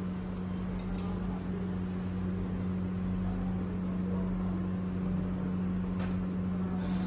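A steady low hum with a few faint light ticks, about a second in and again near the end.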